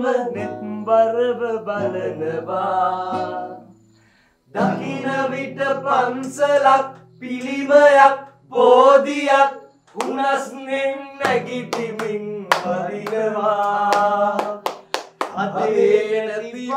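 Male voices singing loudly in long, drawn-out notes over a strummed acoustic guitar. The sound breaks off briefly about four seconds in, and there are sharp strums or strikes later on.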